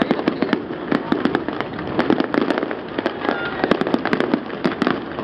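Fireworks display: a rapid, unbroken volley of bangs and pops from many aerial shells bursting together, several to the second.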